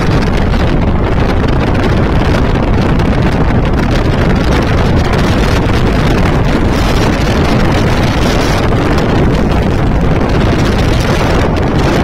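Loud, steady wind buffeting the microphone as it is carried in a moving vehicle, with the rumble of travel underneath.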